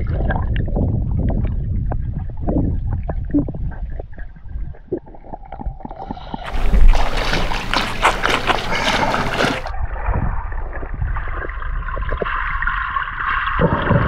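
Water heard through a submerged camera: muffled rushing with many small clicks and bubbling. About halfway through it opens up for a few seconds into plain water splashing and sloshing in the air, then goes muffled again.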